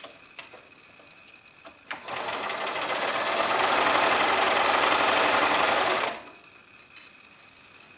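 Electric sewing machine stitching a seam through pinned cotton fabric: it starts about two seconds in, picks up speed, runs steadily and stops sharply about two seconds before the end. A few light clicks come before and after it.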